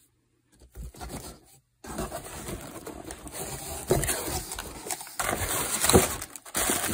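Cardboard box and plastic packaging being handled: continuous rustling and crinkling as hands open the box and move wrapped parts, starting about two seconds in, with a couple of louder knocks.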